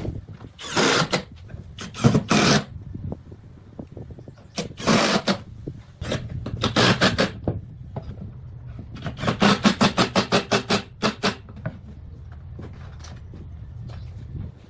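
Repeated scraping strokes in bursts, including a fast run of about five short strokes a second, over a steady low hum.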